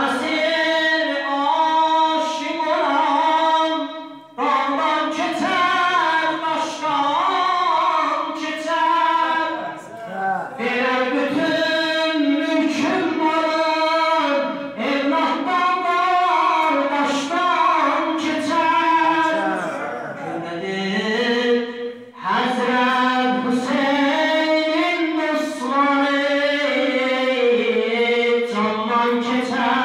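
A man singing an unaccompanied devotional madh song into a microphone, in long, ornamented melodic phrases with short breaths about 4, 10 and 22 seconds in.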